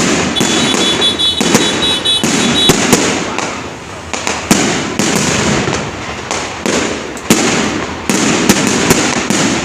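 Fireworks going off in quick succession: many sharp bangs and crackles over a dense, continuous rumble. A steady high tone sounds from about half a second in for roughly two seconds.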